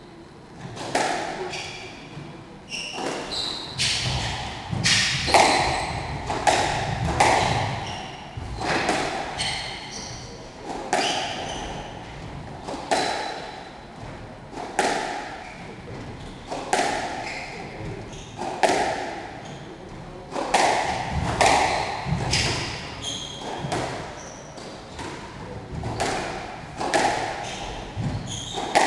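A squash rally: the ball cracks off the rackets and thuds against the walls in a steady exchange, about one stroke every second or two, with short high shoe squeaks on the wooden court floor between strokes.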